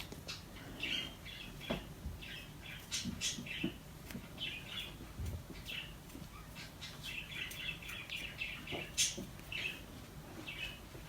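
A small pet bird chirping and squawking on and off in short calls, with a few faint clicks.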